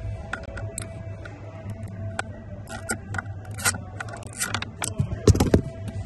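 Hand tools and the plastic accelerator pedal assembly clicking, rattling and scraping as the pedal is worked on in a car footwell. The sounds come thicker in the second half, with a loud knock about five seconds in.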